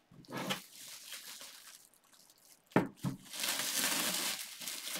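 Clear plastic wrap crinkling and rustling as it is peeled and pulled off a resin-printer cover, with one sharp, loud thump just before three seconds in, followed by steadier crinkling.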